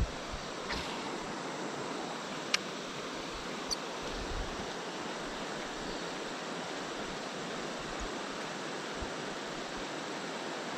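River water rushing steadily over shallows. A sharp click comes about two and a half seconds in, with a fainter one about a second later.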